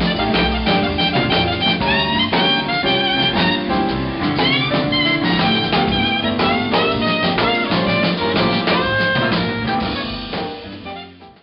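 Live jazz: a soprano saxophone plays a melody line with scooped notes over a drum kit and upright bass. The music fades out near the end.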